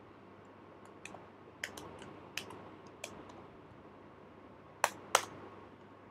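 Computer keyboard keystrokes: a short word typed in a few quick, uneven taps, then two louder key clicks about five seconds in.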